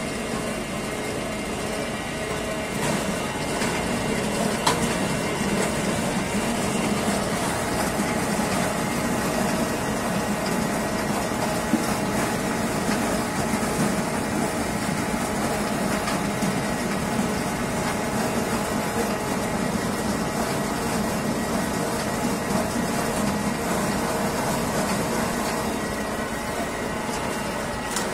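Mobile apple press machinery running steadily while milling apples, its mill feeding crushed pulp down a chute into the press tray, with a steady mechanical hum and a couple of brief knocks.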